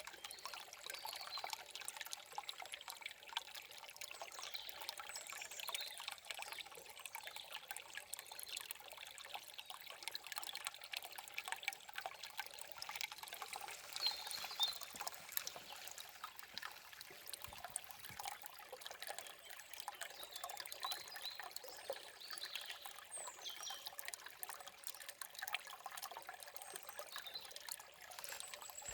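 Shallow forest stream trickling and splashing over stones, a steady babble full of small splashes. A few short bird chirps come through now and then.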